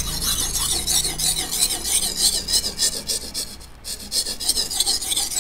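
Vanadis 8 steel golok blade being stroked back and forth on a Malingping natural whetstone, a steady rasping scrape with each stroke, with a brief pause a little before four seconds in.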